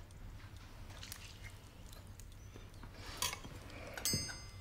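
Faint clinks of a metal ladle and porcelain tableware as porridge is served onto a plate, over low room hum. Two short clinks stand out, about three and four seconds in, the second ringing briefly.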